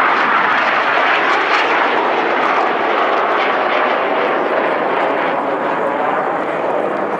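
Fixed-wing aircraft engine noise from a display aircraft, loud and steady without a clear pitch, easing slightly toward the end.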